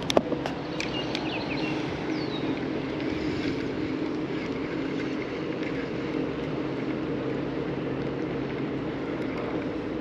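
Steady rumbling noise of a kayak moving on a river, with a low hum underneath and two sharp knocks at the very start. A short falling chirp comes about two and a half seconds in.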